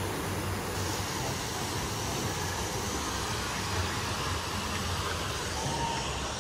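Steady rushing and splashing of a small landscaped rock waterfall spilling into a pool, with a low rumble underneath.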